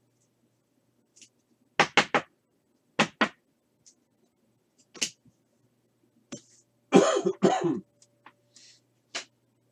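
A person coughing in short bursts: a quick run of three coughs about two seconds in, more at about three and five seconds, a longer cluster around seven seconds and one last cough near the end. Faint rustling of cards comes near the end.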